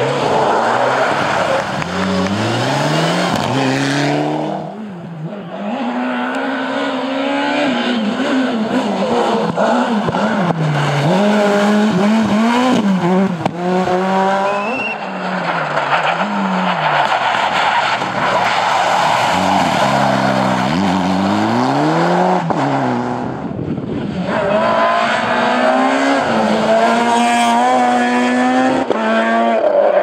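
Rally cars at speed on a special stage, engines revving hard up through the gears and dropping at each shift. The cars are heard in three separate passes with abrupt cuts between them; the first two are Mitsubishi Lancer Evolution IX rally cars.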